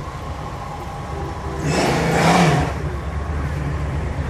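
Classic car's engine and exhaust rumbling at low cruising speed as it passes. About two seconds in there is a brief louder swell that rises and falls in pitch, like a short rev or the car going by close.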